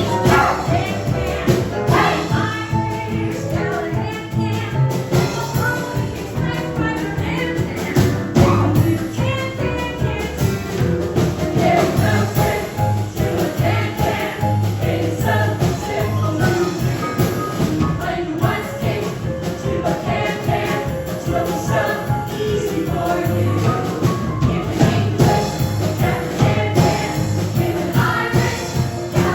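Music with singing voices and a strong bass line.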